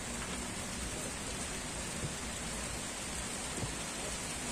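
Steady hiss of rain falling, with two faint knocks about two and three and a half seconds in.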